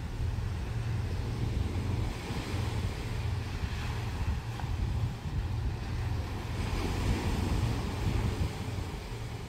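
Wind buffeting the microphone with a fluctuating low rumble, over a steady wash of sea waves.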